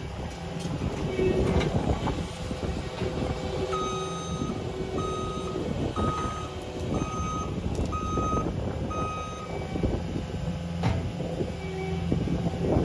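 Caterpillar skid steer's backup alarm beeping six times, about once a second, as the machine reverses, over its engine running steadily and scattered cracks and knocks of debris.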